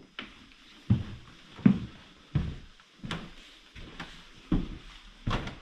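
Footsteps on bare wooden floorboards at an even walking pace, about seven heavy thuds, some with a sharp click of the boards on top.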